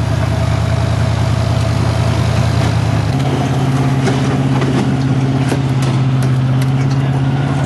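Off-road race truck engine running steadily, stepping up to a higher pitch about three seconds in, with a few sharp ticks in the second half.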